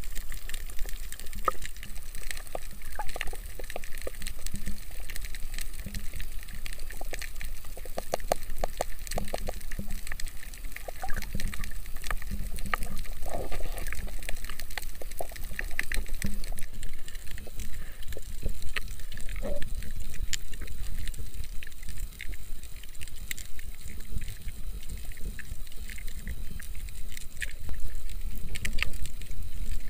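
Underwater ambience recorded below the surface: a steady low rumble of moving water with scattered crackling clicks throughout.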